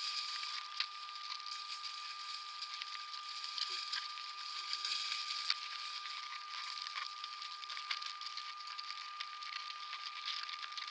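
Steady outdoor hiss picked up by a wildlife camera's microphone, with a constant high whine underneath and scattered small clicks and taps.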